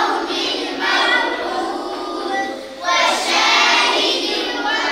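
A group of children chanting together in unison, in sung phrases with a brief pause about two and a half seconds in.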